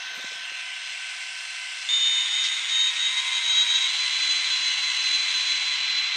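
Digitrax sound decoder playing a diesel locomotive's engine sound through the two small speakers of an Atlas SD7 model locomotive: a hissy, bass-less running sound that gets louder about two seconds in, when a steady high whine joins it.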